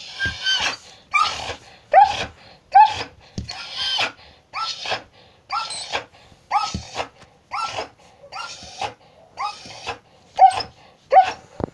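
Old Samoyed panting hard and fast, about three breaths every two seconds, each breath starting with a short whining squeak, during a seizure episode brought on by a brain tumour.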